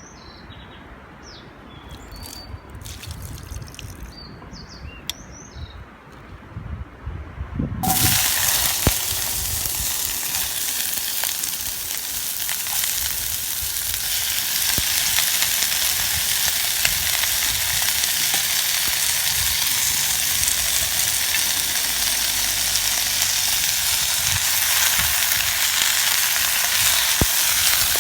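Food sizzling in a hot deep campfire frying pan, starting suddenly about eight seconds in and then holding steady and loud. Faint bird chirps before the sizzle starts.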